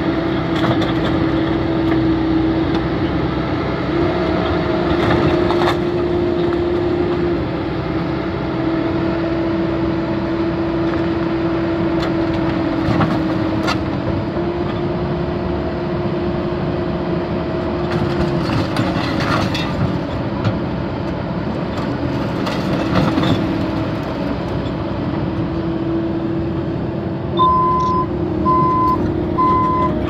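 Excavator engine and hydraulics running steadily, its pitch shifting a little as the machine works, with scattered metal clanks. Near the end a beeping alarm starts, about one beep a second.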